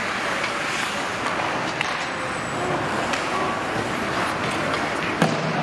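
Ice hockey play on a rink: a steady hiss of skates on ice and arena noise, with scattered clacks of sticks and puck and a sharper knock near the end.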